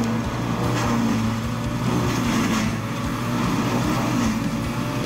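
Morbark 1300B tub grinder running under load: a steady diesel engine note, with a few short bursts of crackling as brush dropped into the tub is ground up.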